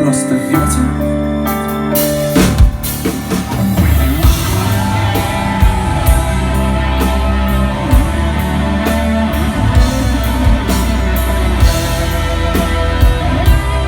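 Rock band playing: a drum kit keeping a steady beat under sustained guitar and other instruments.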